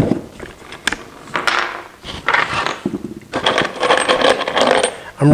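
Metal framing screws clinking and rattling as they are handled, opening with a sharp click and followed by several short clatters and a longer rattle near the end.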